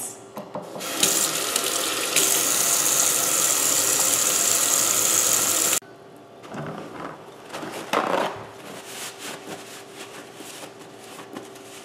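Kitchen tap running into a stainless steel sink while hands are washed under it. The water starts about a second in and is shut off abruptly near six seconds, followed by quieter rubbing and rustling of hands being dried on a towel.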